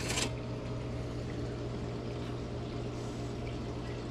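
Steady low hum under an even background hiss, with a brief rustle right at the start.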